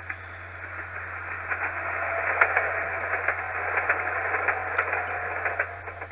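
Recorded sound of a subway train passing by, played back from an MTH DCS locomotive sound file with the highs cut off: a rushing noise with scattered sharp clicks that swells over the first couple of seconds, holds, and fades near the end.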